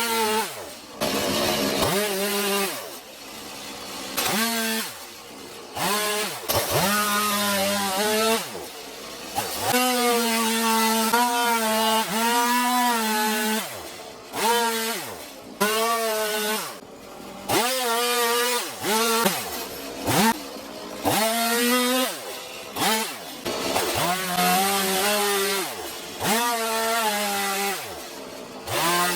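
Stihl MS 180 C two-stroke chainsaw with a quarter-pitch chain cutting into a log. The throttle is opened and released again and again, so the engine note rises and falls, dropping back briefly between cuts every second or few.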